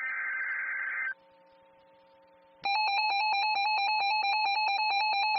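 Emergency Alert System data burst of warbling digital tones for about a second, then a short gap with faint radio hum. About two and a half seconds in, the loud steady alert attention tone starts, with a rapid regular flutter.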